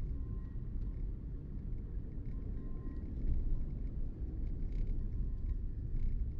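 Steady low rumble of a car driving on a rain-wet street, heard from inside the cabin: road and engine noise, with a few faint ticks.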